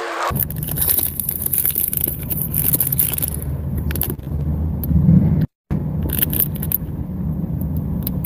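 Crinkling and scraping of a Summer Roll chocolate bar's wrapper being handled, over a steady low rumble of a car. The sound cuts out completely for a moment about five and a half seconds in.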